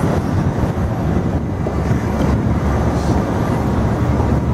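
Steady street ambience of a busy city square: a continuous low rumble of traffic.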